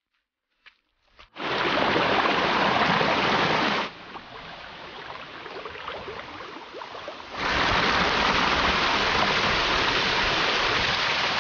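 A small stream's running water, starting suddenly about a second in. It drops quieter for about three and a half seconds in the middle, then comes back loud.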